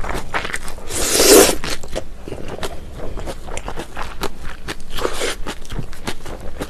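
Close-miked slurping of somen noodles from a bowl of cold raw-fish soup about a second in, then wet chewing with many small mouth clicks and crunches. A second, softer slurp comes about five seconds in.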